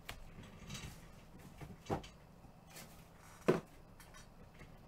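Several short knocks and handling noises on a tabletop as cards and packs are handled and set down, the loudest about three and a half seconds in.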